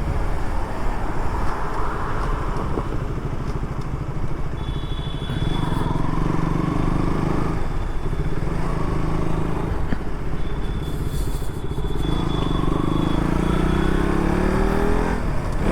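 KTM Duke motorcycle engine under acceleration: its pitch climbs, drops at a gear change about halfway through, then climbs again near the end. Wind rushes steadily over the helmet-mounted microphone.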